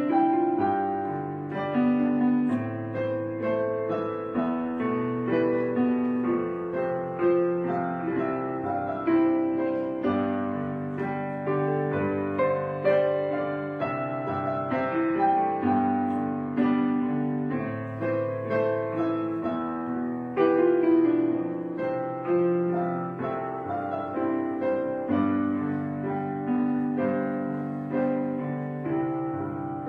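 Background music: solo piano playing slow, sustained chords.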